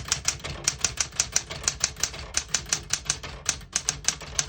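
1964 Smith-Corona Classic 12 manual portable typewriter being typed on at a quick, even pace, its typebars striking about five times a second, with a brief pause a little before the end.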